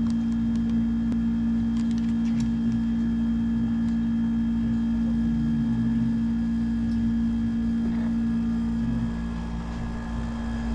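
Panasonic air conditioner running with a steady humming tone, a few faint clicks in the first few seconds, and a slight drop in loudness near the end.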